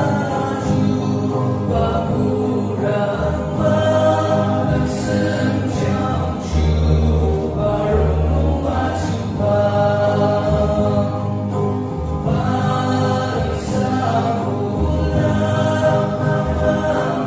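A choir singing a gospel hymn, many voices together, over low bass notes from an accompanying instrument.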